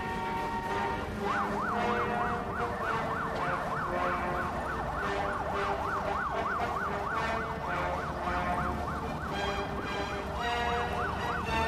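Vehicle siren in a fast yelp, its pitch sweeping up and down about three to four times a second; it starts about a second in, pauses briefly near the end and comes back. A low rumble runs underneath.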